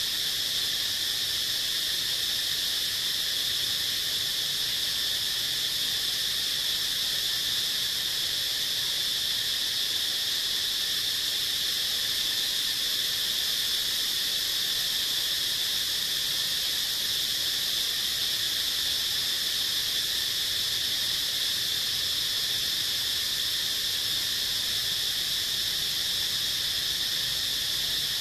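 A steady, high-pitched insect drone, holding one pitch with no rise, fall or pause.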